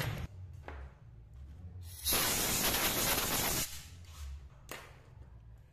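A spray jet hisses for about a second and a half, starting about two seconds in, blowing the metal chips out of the cleared bolt hole among the rocker arms. A few faint clicks come before and after.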